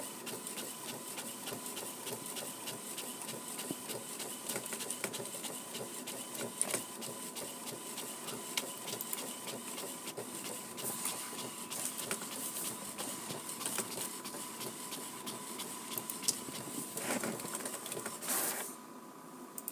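All-in-one office printer printing pages: a steady mechanical run of rapid clicking with a thin steady tone, stopping near the end.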